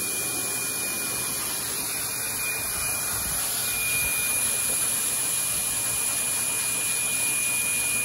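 High-velocity dog grooming dryer running steadily, forcing air through its hose to blow out a Siberian husky's shedding undercoat: a steady rush of air with a thin high whine, a little louder from about four seconds in.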